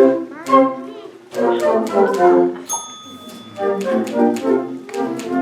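Flute orchestra playing a lively piece with a typewriter as the solo instrument: a few sharp typewriter key clicks, and the typewriter's carriage-return bell rings once about two and a half seconds in, lasting about a second.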